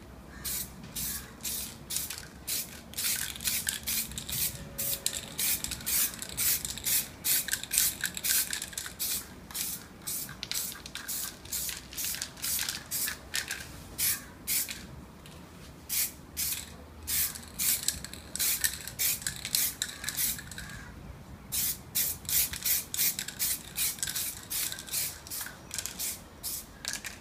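Aerosol can of Carlas rubber film spray paint spraying in many short hissing passes, about two or three a second, with a couple of brief pauses, laying down a light first coat.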